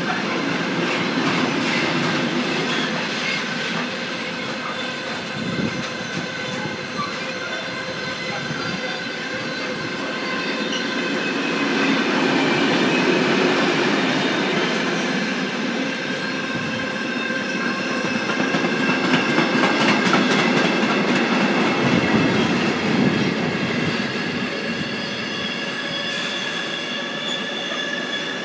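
Intermodal container freight train passing at speed, its wagons running over the rails with a continuous rattle and a steady high-pitched wheel squeal. The loudness swells and eases a little as the wagons go by.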